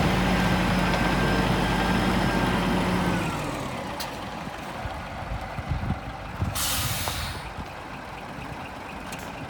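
Scania 420 truck's diesel engine idling steadily, then winding down about three seconds in. A few seconds later comes a short hiss of compressed air from the truck's air brake system.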